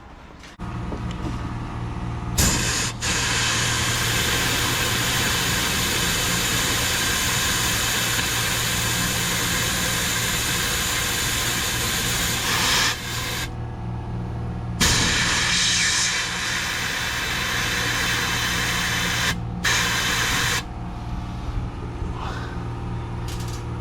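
Compressed-air blow gun hissing in long blasts into the A/C evaporator lines to purge the old oil, cutting off briefly twice, about 13 and 19 seconds in, and softer near the end. A steady low hum runs beneath.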